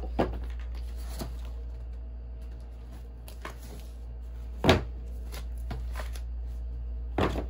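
Cardboard packaging of a boxed bathroom scale being handled: scattered knocks and soft rustling as the wrapped scale is slid out of its box, with the loudest knock about halfway through and another near the end. A steady low hum runs underneath.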